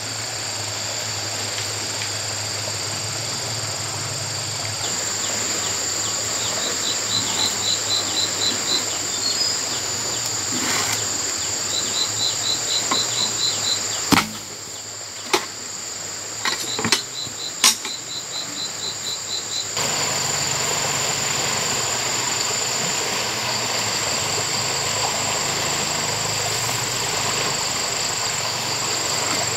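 Insects buzzing steadily at a high pitch over the rush of river water, with runs of quick chirps repeating about six times a second. A few sharp knocks come about halfway through.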